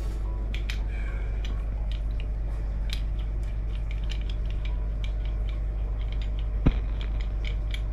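Fine hose spray hissing over a scuba regulator as it is rinsed and turned in the hands, with scattered small clicks and taps of plastic and metal and one sharper knock about seven seconds in.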